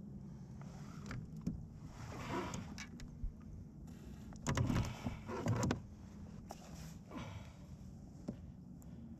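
Knocks, scrapes and rustling on a plastic fishing kayak as a landing net is swung in and a pike is brought aboard, in irregular bursts that are loudest about halfway through.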